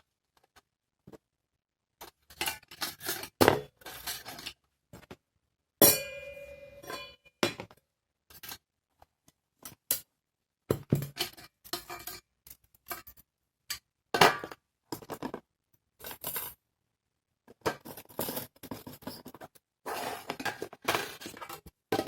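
Metal parts of a steamer-basket fire stand being handled: a run of separate clinks and scrapes with short silent gaps, and one ringing metallic clink about six seconds in.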